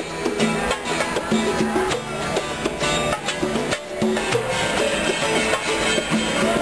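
Music with a steady beat and held pitched notes.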